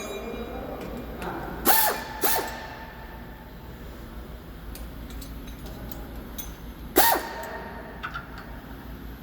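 Mechanical clanks and creaks from work on a car's underside: three sharp metallic knocks, each with a brief squeak that drops in pitch. Two come close together about two seconds in and one about seven seconds in, with faint ticks between.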